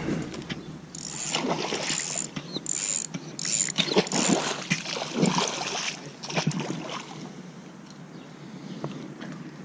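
A hooked pike thrashing and splashing at the water's surface, in a series of splashy bursts over about five seconds, then quieter near the end.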